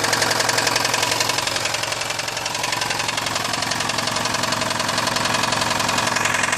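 Lada VAZ 2109/2115 four-cylinder petrol engine running with a rapid, steady knock from a worn connecting-rod bearing.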